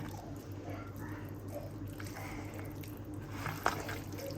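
Wet squishing of chicken pieces being mixed with a spice marinade in a bowl, with a few light clicks over a steady low hum.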